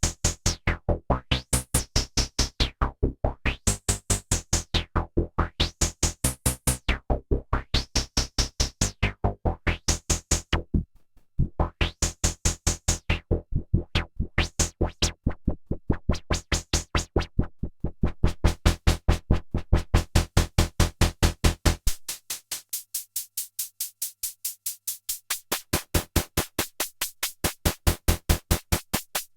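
EDP Wasp monophonic analog synthesizer playing a fast, even stream of short pulsing notes, several a second, its filter slowly sweeping open and shut so the tone brightens and dulls every couple of seconds. Near the middle it stops for a moment, and about two-thirds of the way through the bass drops away, leaving a thinner, brighter pulse.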